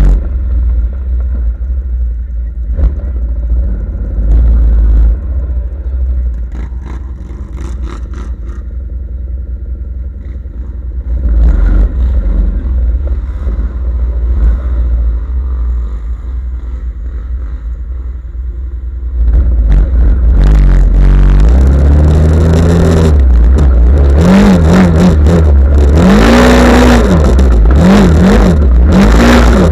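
Off-road vehicle engine running under a heavy low rumble, with some clatter. About two-thirds through it gets much louder and is revved up and down over and over.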